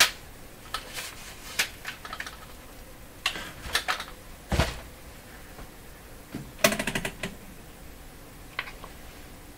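Scattered clicks and knocks of handling on a workbench as the camera is moved and repositioned. A heavier thump comes about four and a half seconds in, and a quick rattle of clicks follows near seven seconds.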